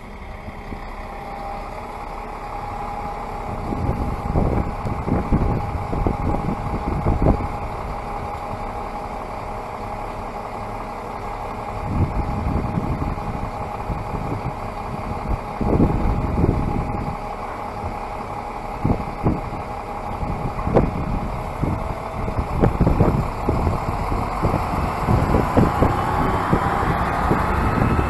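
Stadler Regio-Shuttle RS1 diesel railcar running in and drawing up alongside the platform, getting louder as it comes, with a rising whine near the end. Gusts of wind buffet the microphone.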